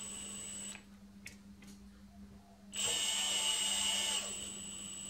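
Cordless drill turning the lathe top slide's feed screw through an extension shaft, powering the top slide feed. It gives a steady high whine that drops away for about two seconds, comes back louder for about a second and a half, then settles back to its steady level.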